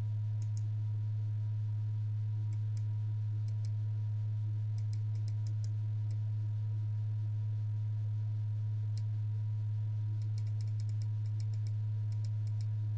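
Steady low electrical hum from a running YG300 mini LED projector, which the reviewer calls a bit of a hum. Faint quick clicks in short runs, like buttons pressed to step its brightness setting.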